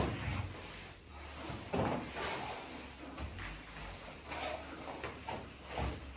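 Grappling on foam mats: bodies, shin guards and gloves scuffing and bumping irregularly, with a sharp thump at the start and another about two seconds in.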